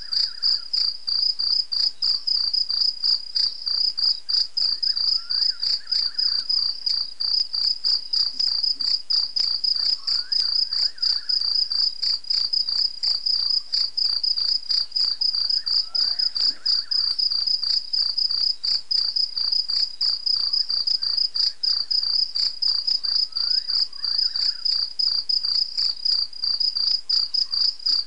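Night-time chorus of crickets: a continuous, high, rapidly pulsing chirp. A fainter, lower call repeats every five or six seconds beneath it.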